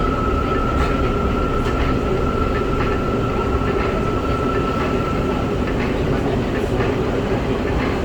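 Steady mechanical noise inside a car of an MRT Putrajaya Line driverless metro train: low rumble of the running gear with a thin high whine that stops about five and a half seconds in.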